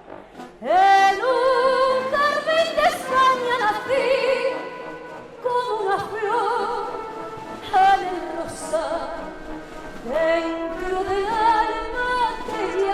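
A woman singing in operatic style with wide vibrato and orchestral accompaniment, in three long held phrases, each opening with an upward slide.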